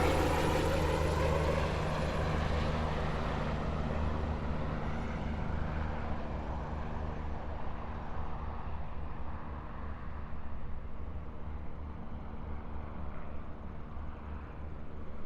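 Helicopter flying away: the steady low beat of the rotor blades fades as the higher engine and turbine sound dies out.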